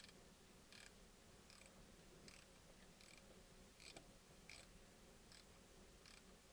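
Near silence with faint, regular clicks, about one every three-quarters of a second, as a Heli-Coil installer tool is turned by hand to wind a stainless steel thread insert into a tapped hole.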